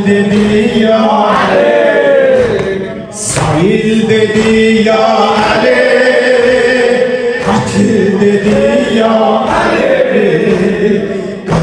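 Men chanting a Shia mourning lament together, with long held notes that slide between pitches.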